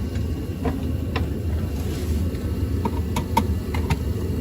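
Torpedo heater running with a steady roar. A few sharp clicks sound over it, most of them in the second half.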